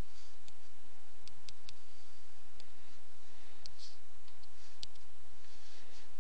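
Computer mouse button clicking about ten times at an irregular pace, over a steady background hiss and low hum.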